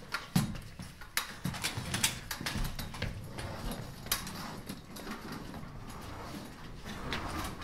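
Scattered light knocks and clicks over a faint steady hiss.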